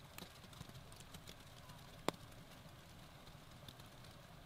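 Faint, irregular taps of wet snow and drops landing on a tarp overhead, with one sharper tap about two seconds in.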